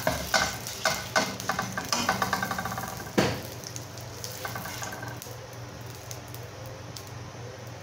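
Slotted spatula scraping quickly back and forth across a white-coated frying pan, spreading melted butter, with a sharp knock a little after three seconds. After that the strokes stop and only a faint sizzle of butter heating over a low flame remains.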